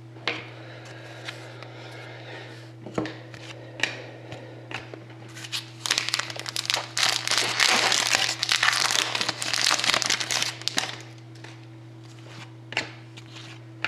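Trading cards and packaging being handled: scattered light clicks and rustles, then about five seconds of loud crinkling plastic wrapper starting around the middle, as a card pack or its wrapping is handled. A steady low electrical hum runs underneath.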